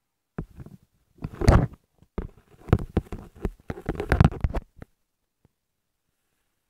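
Irregular rustling, knocks and handling noise as things are moved about close to the microphone, stopping abruptly about five seconds in.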